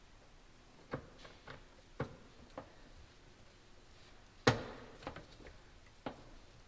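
Scattered light clicks and knocks of parts being handled and worked loose around a C5 Corvette's license plate light housing, with one louder knock with a brief ring about four and a half seconds in.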